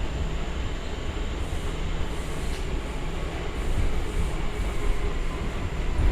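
Inside a New York City subway car moving underground: a steady, heavy low rumble of the car and its wheels on the track.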